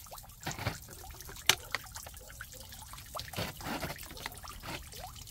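Water trickling and splashing into a small garden pond, with scattered sharp drips and splashes, one louder splash about a second and a half in.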